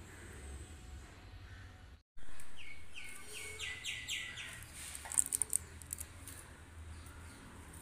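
A bird chirping: a quick run of about six short, falling chirps a couple of seconds in, followed by a few sharp clicks about five seconds in, over a steady low hum.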